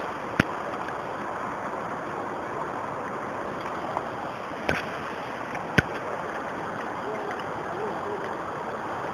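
Shallow stream running steadily over rocks, with three sharp knocks while chicken pieces are washed in a plate in the water.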